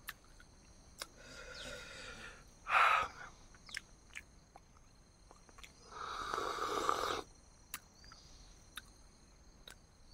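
A person breathing heavily while eating: a sharp loud breath about three seconds in and a longer groaning exhale around six seconds in, with small wet mouth clicks between.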